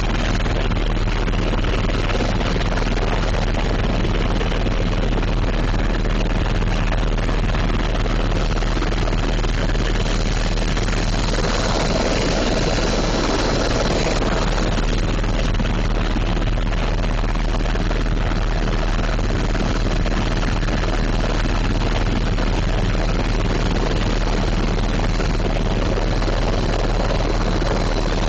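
Helicopter in flight: steady, loud rotor and turbine noise with a constant low hum, the noise growing a little brighter for a few seconds around the middle.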